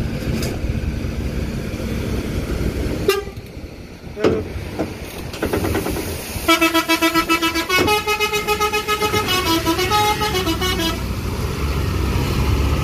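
Tour bus engines running low, then about halfway through a multi-tone musical bus horn ('telolet' horn) plays a short tune of several notes with a rapid warble, lasting about four seconds. A couple of sharp knocks come a few seconds in.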